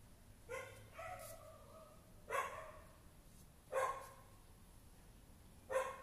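A dog barking several times, with the barks spaced a second or more apart and the last three louder than the first two.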